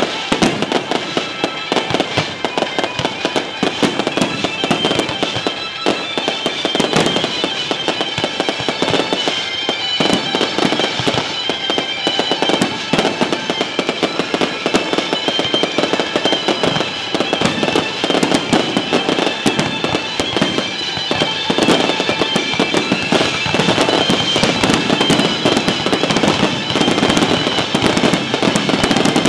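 Aerial fireworks shells bursting and crackling in quick succession, with music playing underneath.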